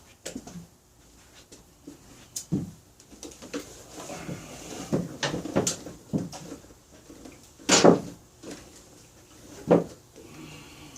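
A series of irregular clunks and knocks, the two loudest near the end.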